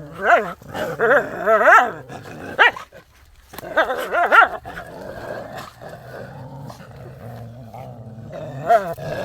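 Indian desi dogs fighting: several short bursts of snarling and barking in the first half, then a lower, steady growl, and another snarling bark near the end.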